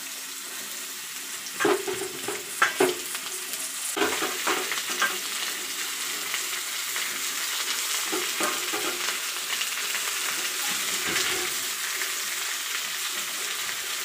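Matchstick-cut potatoes frying in hot oil in a kadai: a steady sizzle that grows a little louder about four seconds in. Sharp knocks and clatters are loudest in the first five seconds as more potato goes into the pan.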